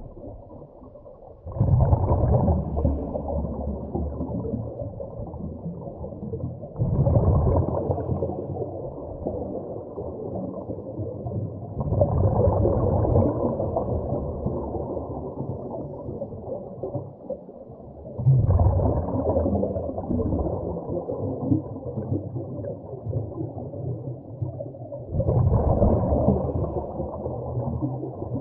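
Scuba regulator breathing heard underwater through a camera housing. Five muffled bubbling surges of exhaled air come about every five to six seconds, over a low steady rumble.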